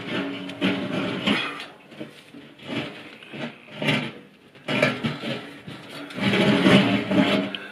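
Sheet-metal wood stove and its stainless chimney pipe rattling and scraping on gravel as the stove is shifted by its handles, in several short bursts.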